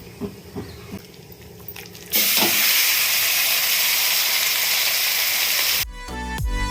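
A few light knocks, then about two seconds in a sudden loud sizzle of chicken frying in hot oil that runs for about four seconds and cuts off abruptly.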